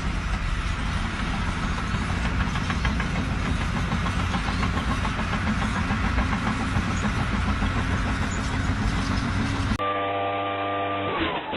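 Loud, steady rumbling and rattling of a running engine or machine. About ten seconds in it cuts abruptly to a steady multi-tone hum that slides down in pitch, followed by a few knocks.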